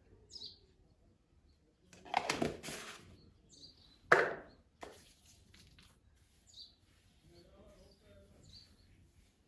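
Small birds chirping repeatedly in the background. Two short, louder hissing noises come about two and four seconds in.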